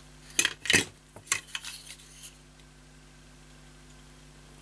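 A quick run of sharp clicks and knocks of hard plastic parts being handled: the toy car's plastic chassis and the filler bulb's nozzle knocking together, bunched in the first two seconds and loudest around the first second.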